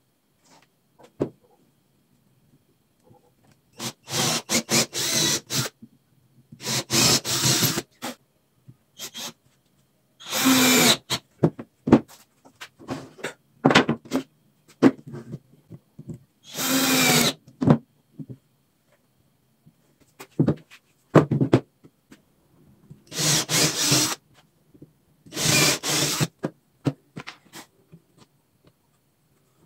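Power drill running into eucalyptus pallet wood in about six short bursts of one to two seconds each, with scattered knocks and clicks of wood being handled between them.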